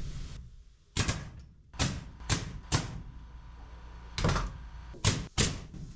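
About seven sharp knocks on wood, irregularly spaced, in the short blows of work on a scrap-wood cabinet frame.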